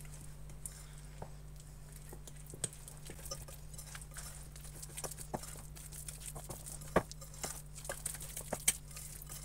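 Fork stirring a soft cookie batter of margarine, egg, oil, powdered sugar and cornstarch in a glass bowl, with light irregular clicks of the fork against the glass and a couple of sharper taps.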